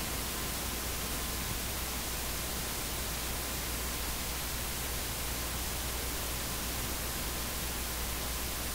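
Steady hiss of static with a low hum underneath, unchanging throughout: the background noise of the room's microphone and recording line while no one speaks.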